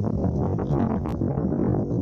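Background music with dense low-pitched instrumental sound.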